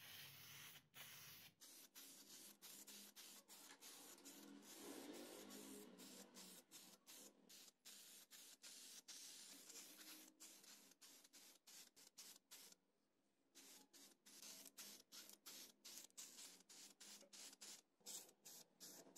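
Aerosol spray-paint can hissing faintly in many short bursts as the pump's metal parts are sprayed blue, with a pause of about a second about two-thirds of the way through.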